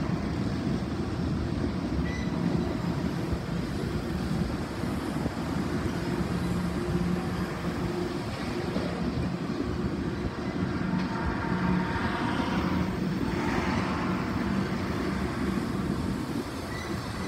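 Union Pacific freight train of tank cars rolling past, a steady rumble of wheels on the rails. A faint higher whine rises for a few seconds about two-thirds of the way through.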